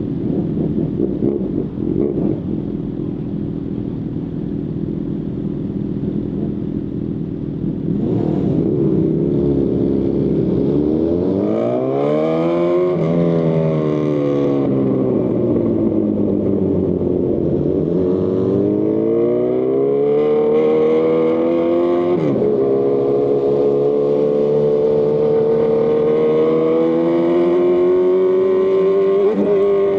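A 2018 Honda CB1000R's inline-four engine running through a Lextek CP1 full exhaust system. It runs at a low, even rumble at first. About eight seconds in it accelerates with a rising pitch, with quick dips at the gear changes, eases off, pulls up again, and settles into a steady, higher note toward the end.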